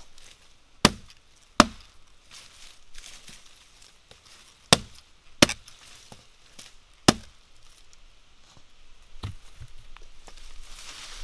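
Hatchet chopping into the wood of a felled dying tree: five sharp blows, a pair and then a quick run of three, and a fainter knock later.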